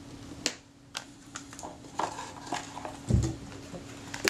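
Small clicks and taps of tools and small parts being handled on a workbench during lens cleaning, with a dull thump about three seconds in and a sharp click at the end. A low steady hum runs underneath and stops with that last click.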